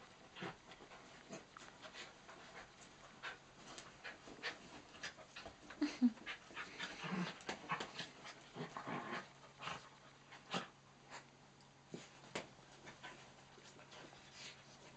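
Miniature dachshunds and cocker spaniels play-wrestling on a bed: dogs panting, with many small scuffling clicks and rustles on the bedcover and a couple of short low dog sounds about six and seven seconds in.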